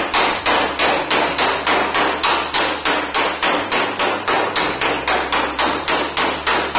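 Hammer driving a chisel against a 1970 Valiant's steel firewall in fast, even blows, about four a second, each strike ringing off the sheet metal; the blows stop near the end.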